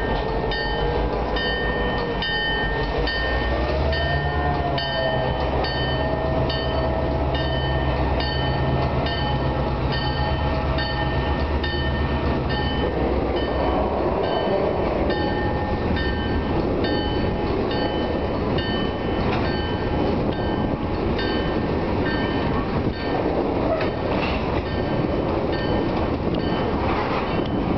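A train of covered hopper cars rolls slowly past at close range, its wheels rumbling and clacking over street-running track. A bell dings steadily at a bit over one stroke a second throughout. In the first half a high squeal wavers in pitch and then holds steady, over a low drone.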